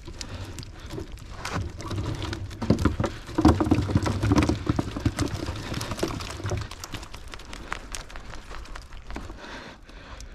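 A rapid patter of taps and slaps: live perch and roach flapping in a plastic crate and against the wire mesh of a fish trap as the catch is shaken out. It is busiest in the first two-thirds and thins out near the end.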